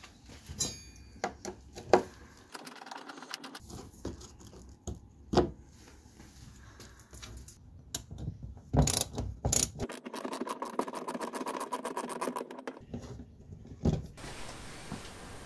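Ratchet wrench undoing the bolts that hold a car bumper: scattered sharp clicks and knocks of the tool on the fasteners, then a fast, even run of ratchet clicks for about three seconds, two-thirds of the way in.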